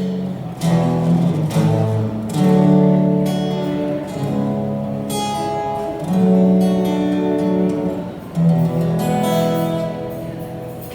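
Acoustic guitar strumming a slow chord progression, the chords changing every second or two, with no singing.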